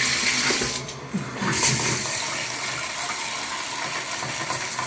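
Shower water spraying steadily, with a brief drop about a second in. It cuts off suddenly at the end.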